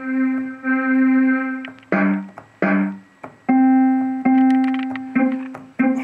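MIDI synthesizer voices playing the same note over and over, switched to a different instrument sound with each button press. First comes a held note, then two short struck notes, then more held notes and a few short ones near the end.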